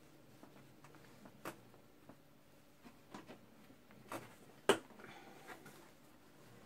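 Fabric rustling and brushing in a few short strokes as a gathered cloth panel is handled and held up for fitting, with one sharper click about two-thirds of the way through.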